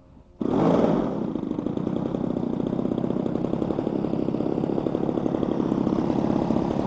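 Fuji Imvac 34cc single-cylinder two-stroke gas engine of a quarter-scale RC Piper Cub, coming in suddenly and loud about half a second in and then running steadily at high power. The engine has a replaced phenolic carburettor insulator and is tuned to run reliably after a crash.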